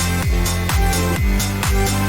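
Electronic dance music with a steady four-on-the-floor kick drum and bass.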